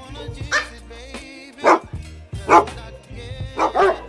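A dog barking: single barks about a second apart, then quicker barks near the end, over background music.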